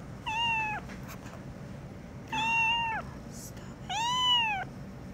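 Young kitten meowing three times, about a second and a half apart, each meow rising and then falling in pitch.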